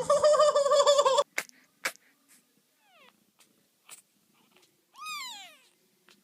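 A cat meowing: a loud, wavering yowl lasting about a second that cuts off suddenly, then a few short sharp sounds, a faint falling mew about three seconds in, and a clearer falling meow about five seconds in.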